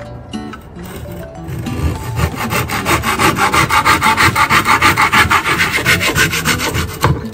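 Hand saw cutting a thin wooden board: quieter strokes at first, then from about two seconds in a fast, even back-and-forth rasp of about five strokes a second that stops just before the end.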